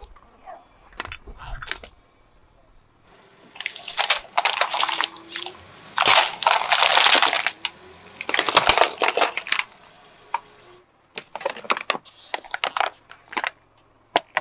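A car tyre rolling over and crushing objects on asphalt: scattered cracks and crinkles at first, then several seconds of dense crunching and metallic scraping as it runs over a heap of metal screws, then a string of sharp cracks near the end.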